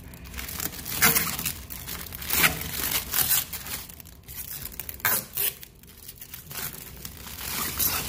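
Blue protective plastic film being peeled off a stainless steel microwave casing and bunched up in the hand: irregular crinkling and tearing rustles.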